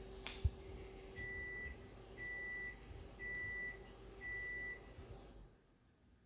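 An electronic beeper sounding four times, evenly spaced: steady high beeps about half a second long, roughly one a second.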